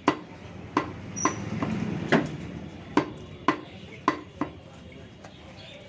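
A butcher's cleaver chopping through beef on a chopping block. About eight sharp, irregularly spaced chops stop about four and a half seconds in.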